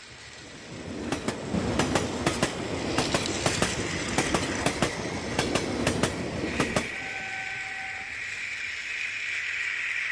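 Battery-powered Centy toy train running on its plastic track: a rattling rumble with sharp irregular clicks for about six seconds. Then the rattle stops and a steady high-pitched whine carries on.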